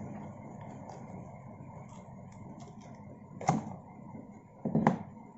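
Handling noise as a plastic phone charger and its packaging are picked up and moved: light scattered ticks, then two louder knocks, one about three and a half seconds in and one near the end.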